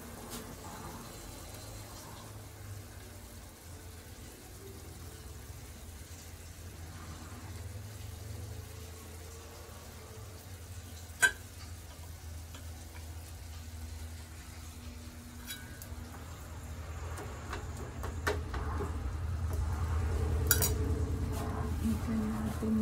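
Sauce with vegetables simmering in a frying pan on a gas stove, with a few sharp clicks of metal tongs as blocks of noodles are lifted from a plate into the pan. The cooking noise grows louder over the last few seconds.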